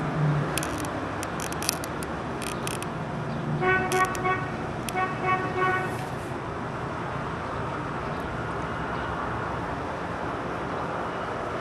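Sandstorm wind blowing steadily. A vehicle horn sounds in two runs of short honks about four and five seconds in.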